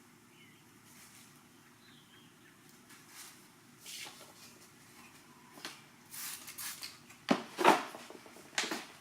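Short rustling, rubbing scrapes of a wet vinyl overlay being wiped and pressed down by hand. They come more often and louder as it goes, with the three loudest in the last two seconds.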